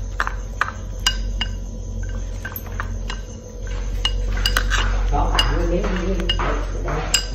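Ceramic bowl and wooden chopsticks clinking against a metal cooking pot as chopped herbs are scraped in: a run of sharp clinks, several ringing briefly, busier in the second half.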